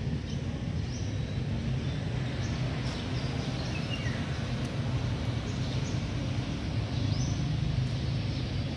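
Steady low outdoor rumble with a few faint bird chirps scattered through it.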